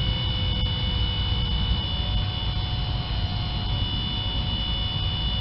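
Newly fitted Denso electric in-tank fuel pump in a 1987 Toyota 4Runner running with a steady hum and thin high whine, pressurising the drained fuel lines; it sounds like it has a load on it.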